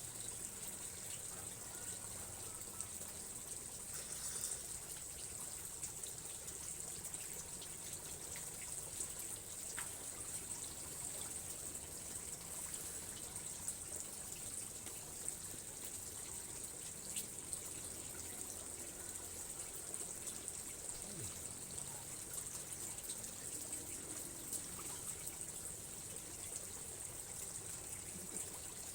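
Water trickling steadily, with a continuous high hiss.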